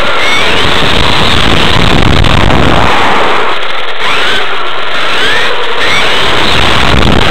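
Onboard sound of a Kyosho Inferno GT RC car with a Novak brushless motor driving fast: a loud, dense rush of wind, tyres and drivetrain, with the motor's thin whine sliding up and down in pitch as the throttle changes. The low rumble eases for a few seconds in the middle and comes back near the end.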